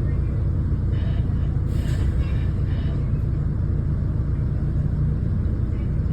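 Single-deck bus's diesel engine and road rumble heard from inside the moving bus, a steady low drone, with a few short noises between about one and three seconds in.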